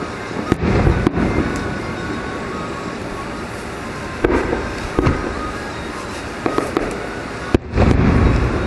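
Aerial fireworks shells bursting overhead: a series of sharp bangs at irregular intervals, about seven in all, over a steady background rumble.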